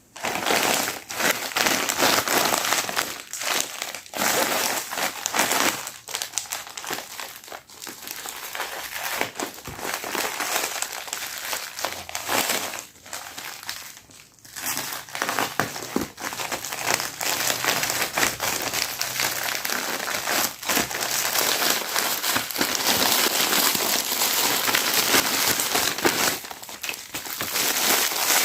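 Parcel packaging crinkling and crumpling as it is handled and unwrapped by hand, in long stretches broken by a few short pauses.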